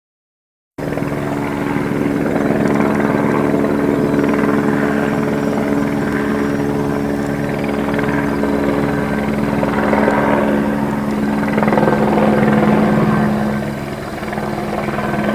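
Helicopter flying: a steady engine drone with a fast, even rotor beat, starting suddenly about a second in and dipping slightly in level near the end.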